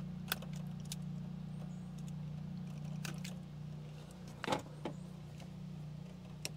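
Short sharp clicks of needle-nose pliers handling the wiring inside a pool heater, about six of them with the loudest about four and a half seconds in, over a steady low machine hum.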